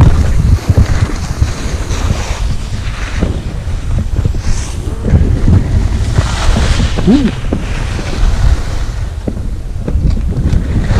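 Wind buffeting the microphone of a skier's camera during a descent, a heavy rushing rumble, with skis hissing and scraping over the snow.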